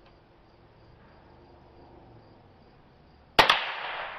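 A single .22 Long Rifle shot from a Glenfield Model 20 bolt-action rimfire rifle about three seconds in: one sharp crack with a ringing tail that fades over about a second. Before it only a faint insect buzz.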